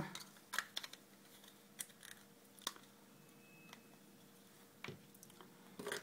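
Light, irregular clicks and taps of small plastic keypad parts being handled and pressed back into place.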